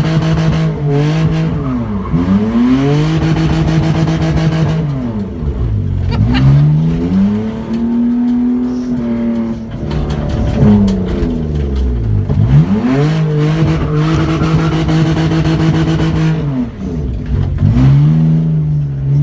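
BMW E46 drift car's engine held at high revs during donuts, the revs dropping away and climbing back about four times.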